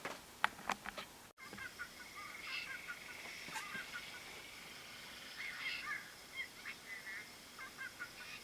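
A few sharp clicks, then faint bird chirps, short, curving and irregular, over a steady faint high tone.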